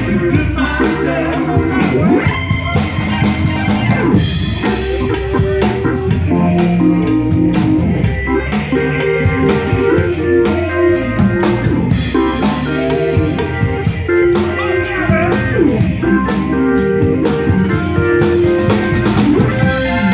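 Live blues-rock band playing with organ and a drum kit, the organ chords and drums running steadily.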